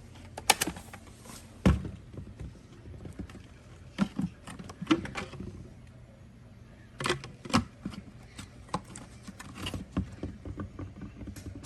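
Irregular clicks and knocks, as of the Tineco floor cleaner's plastic parts being handled, over a faint steady low hum.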